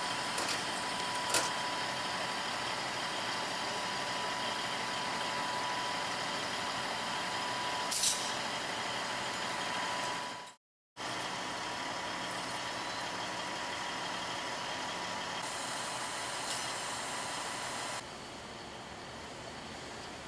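Heavy tow truck's diesel engine running steadily, with a short, loud burst of air hiss about eight seconds in. The sound drops out briefly a little past the middle.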